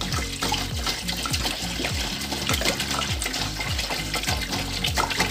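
A steady stream of water being poured into a large aluminium pot, splashing onto sautéed chicken and sausage in a little oil: about 1.5 litres of water going in to make the broth for a chicken macaroni soup.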